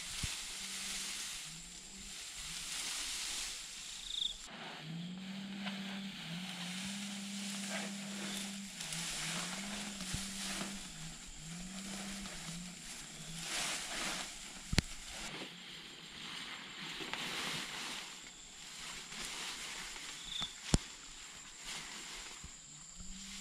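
Leafy bamboo branches rustling and swishing as they are dragged over grass and piled onto a tarp shelter, with two sharp clicks or snaps partway through. A faint steady insect whine runs underneath, and a low hum comes and goes in the middle.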